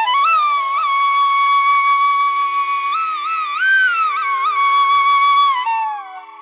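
Background music: a flute plays a slow melody, holding a long note with slides and bends in pitch, over a steady drone. The melody fades out near the end.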